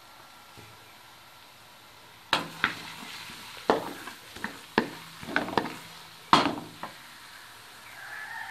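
Wooden spatula stirring chopped onions frying in hot mustard oil in a metal karahi: a soft sizzle, then from a couple of seconds in a run of sharp knocks and scrapes of the spatula against the pan, the loudest about six seconds in.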